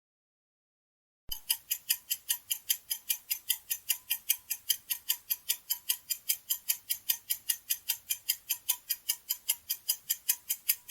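Clock-style countdown timer ticking: sharp, evenly spaced ticks, about four or five a second, starting about a second in and stopping near the end.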